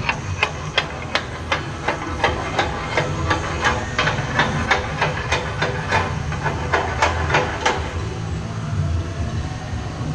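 Rhythmic hammering on metal, about three blows a second, that stops about eight seconds in, over a steady low shop hum.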